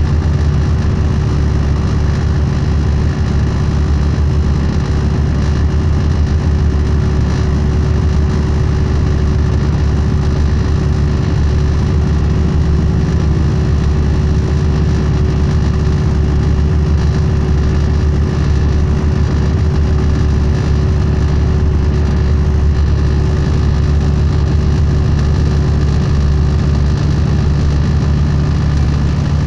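MCI D4500 coach's Cummins ISX diesel engine cruising steadily at highway speed, heard from inside the cabin over steady tyre and road noise.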